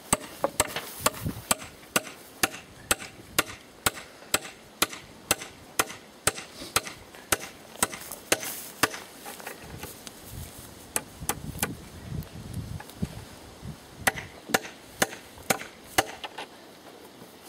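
Hammer driving nails into a wooden fence rail: steady blows about two a second, a short break about ten seconds in, then more blows at an uneven pace.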